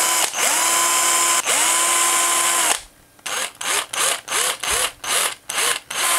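Cordless drill with a small twist bit boring pilot holes into a carved wooden lure body. The motor whines up to speed and runs steadily for a couple of seconds, then is triggered in a quick series of short spurts, each one spinning up.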